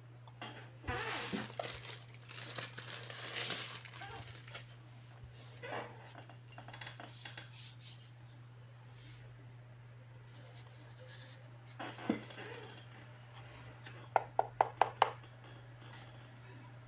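Plastic bag crinkling as a handheld tire inflator is pulled out of it and handled, then a single knock and, near the end, a quick run of five sharp clicks, all over a steady low hum.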